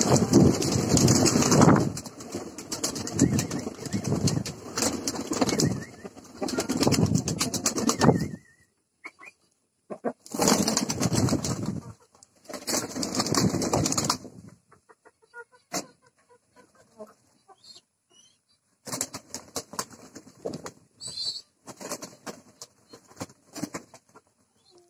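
A flock of domestic pigeons beating their wings as they flutter down and jostle around feed. The flapping comes in loud stretches through the first half, then in shorter, quieter flurries and scattered wing claps later on.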